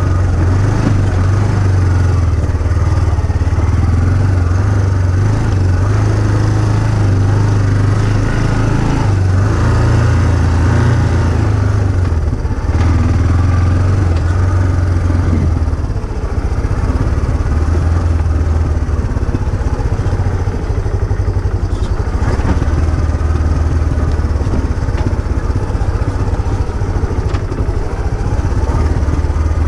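An engine running continuously, its low hum wavering a little in pitch and level as the throttle changes.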